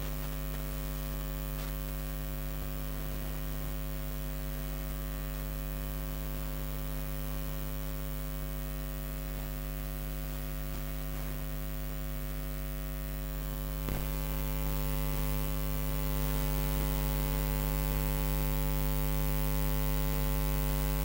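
Steady electrical mains hum, a low buzz with many overtones and no voices over it. It gets a little louder about two-thirds of the way through.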